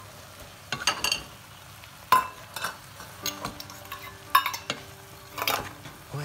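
A wooden spatula stirring and tossing stir-fried rice noodles and vegetables in a metal pot, giving a handful of irregular scrapes and knocks against the pot.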